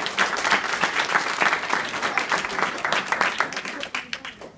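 A small group of children and adults clapping, the applause dying away near the end.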